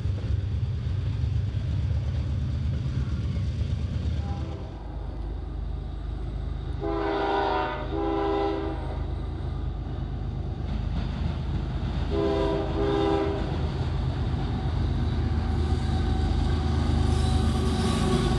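Freight train tank cars rolling past with a low steady rumble; then Union Pacific diesel locomotives approach, sounding a multi-tone air horn in two pairs of short blasts, their engines growing louder as they pass near the end.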